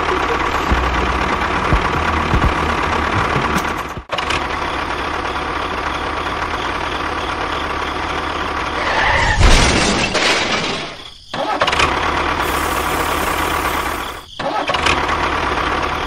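A small motor running steadily with a faint whine, cutting off abruptly about 4 seconds in, again near 11 seconds and near 14 seconds, and picking straight back up each time. It is louder and busier for about a second, around 10 seconds in.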